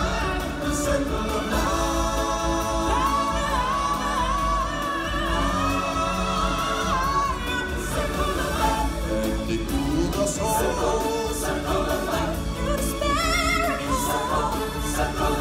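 Live stage-show music: singers, solo and in chorus, performing a song over loud amplified backing music, with held notes wavering in vibrato.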